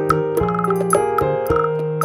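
Background instrumental music: a light melody of short, evenly spaced notes over held tones.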